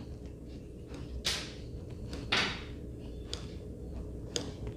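Plastic modelling tool scraping across fondant in a silicone pearl mould, cutting off the excess: about four short scrapes roughly a second apart, the second one the loudest.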